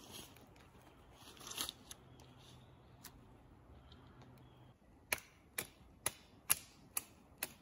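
Six sharp knocks at about two a second, typical of a hand tool striking wood, with a brief rustle before them.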